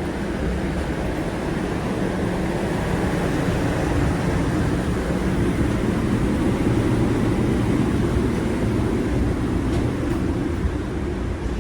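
Jet airliner heard from inside the cabin: a steady low rumble of engines and airframe, growing a little louder over the first few seconds, then holding.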